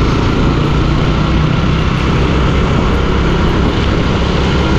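Steady engine and tyre noise of a vehicle driving on a rain-soaked road, a low even hum under a constant hiss.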